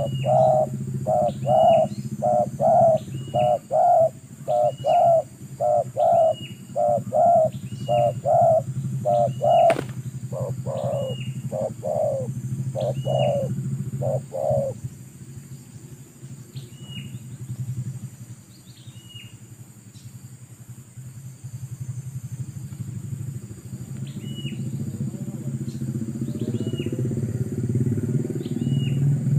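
Spotted dove cooing in a quick, regular run of short low notes, about two a second, which stops about halfway through. A small bird's thin chirps repeat throughout, over a steady engine hum that grows louder near the end.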